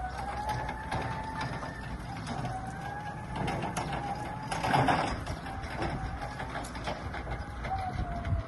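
STILL electric pallet stacker being driven, its drive motor whining with a pitch that drifts up and down as the speed changes, over rattling and clicking from the machine. A louder clatter comes about five seconds in.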